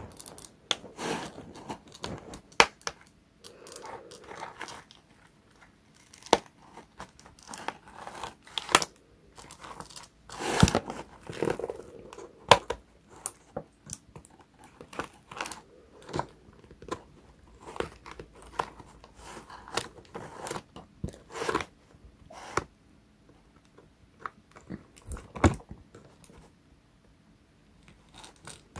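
Plastic and cardboard toy packaging crinkling, crunching and tearing in irregular bursts with sharp clicks as a doll is worked free of its box, dying down near the end.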